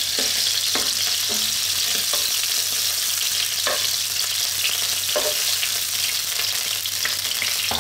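Hot oil sizzling steadily in a frying pan as thin slices of pork liver fry. A few sharp clicks and taps come through as tongs lift the slices out.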